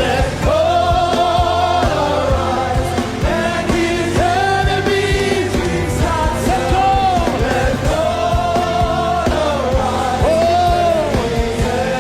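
Live gospel worship song: a voice sings long held notes that glide between pitches over a backing band with steady bass and regular drum beats.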